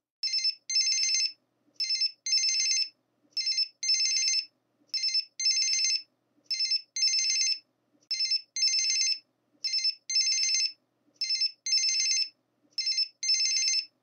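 Electronic telephone ring warbling in a repeating short-long pattern: a brief trill, then a longer one. It sounds nine times, about every second and a half.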